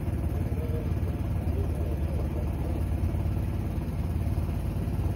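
An engine idling steadily: a low, even rumble.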